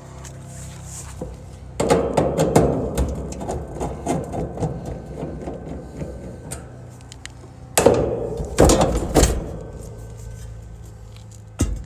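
Sheet-metal clattering and knocks as a rooftop AC unit's access panel and cabinet are handled: a dense run of rattling bangs, then a few single hard knocks.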